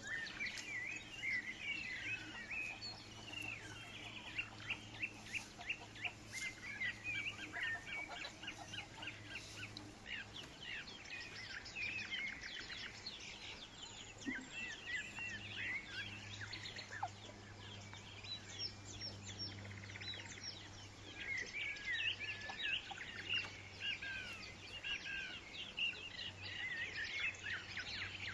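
Many small birds chirping and twittering in a dense, busy chorus of short calls, over a steady low hum.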